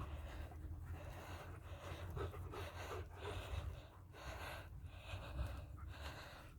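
Heavy, rhythmic breathing or panting in the heat, each breath a short rush of air repeating about every half second to second, over a steady low rumble of wind or handling noise.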